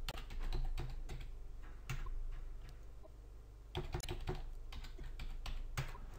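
Typing on a computer keyboard: short runs of keystrokes with pauses between, over a low steady hum.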